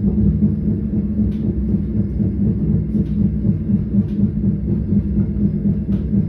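Train wheels clattering over the rails, heard as a steady low rumble and hum inside a moving carriage, with a few faint clicks a second or two apart.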